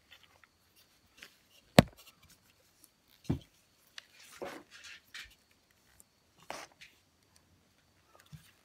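Handling noise from a Makita cordless impact driver turned over in the hands: a sharp plastic click about two seconds in, a duller knock about a second later, and a few faint rubs and taps.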